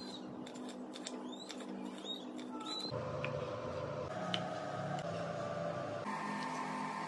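Kitchen knife chopping green chillies on a wooden cutting board, a quick run of sharp taps. About three seconds in, this gives way to the knife slicing through a raw potato with only a few soft knocks on the board, over a steady hum.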